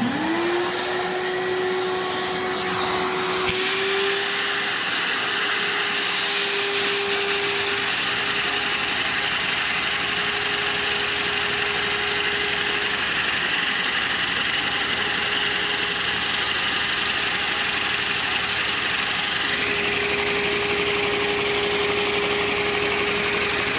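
A vacuum cleaner switched on, its motor spinning up and then running steadily with a whooshing rush of air and a steady hum. Its hose sucks air through a Lego two-cylinder vacuum engine and keeps it running.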